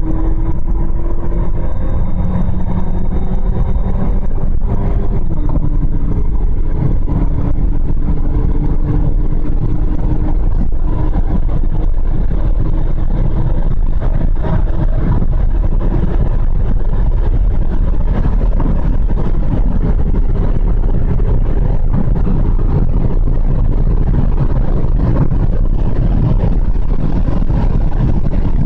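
Saab 9-3 Sport Sedan's turbocharged four-cylinder engine under hard acceleration, heard from inside the cabin over heavy road and wind noise, on a Stage 2 JZW tune with a K&N intake and 2.5-inch catback exhaust. The engine note rises, drops once about five seconds in as the automatic shifts up, then climbs slowly as speed passes 200 km/h.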